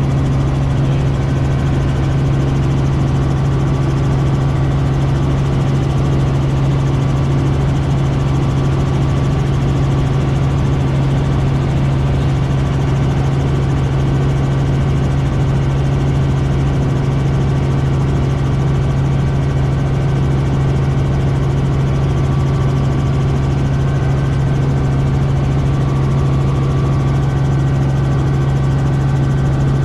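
Robinson R44 helicopter's engine and rotors running with a steady low drone that does not change.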